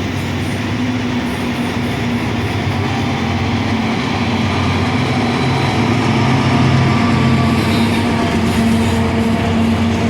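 Train passing close by, with a steady low engine drone over the rumble of the wheels, growing slightly louder toward the middle.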